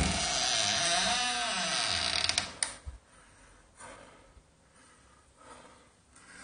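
Wooden door creaking on its hinges as it is pushed open, a loud wavering squeal that stops about two and a half seconds in.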